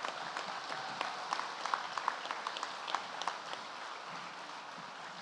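Audience applauding, the clapping thinning out and fading over the last couple of seconds.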